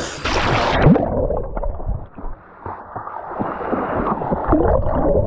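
River water splashing, then from about a second in a loud, muffled gurgling and bubbling heard from under the water's surface.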